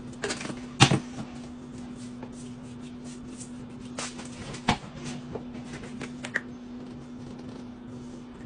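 Spice shakers and drumsticks being handled over metal baking pans: a few sharp clicks and knocks, the loudest about a second in, with faint light ticks of shaking between them, over a steady low hum.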